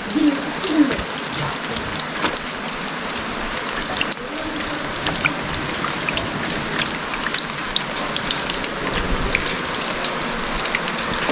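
Steady rain falling, with many individual drops ticking sharply on a surface.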